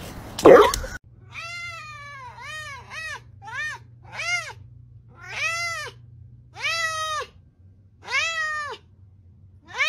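A brief loud noise just after the start, then a long-haired cat meowing over and over: about nine meows, some short and some drawn out, each rising and then falling in pitch.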